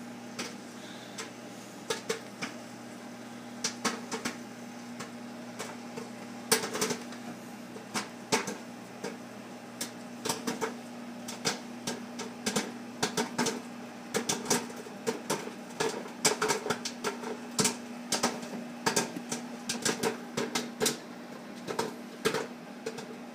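Microwave popcorn popping inside a running microwave oven: sharp irregular pops, a few at first, then coming thick and fast from about halfway through, over the oven's steady hum.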